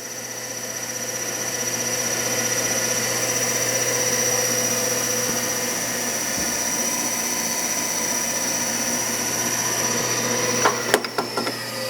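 Studer RM-250 universal cylindrical grinder running under power, its grinding wheel spinning with a steady whine. Near the end a few sharp clicks come as the machine is stopped, and the whine starts to fall as the wheel begins to slow.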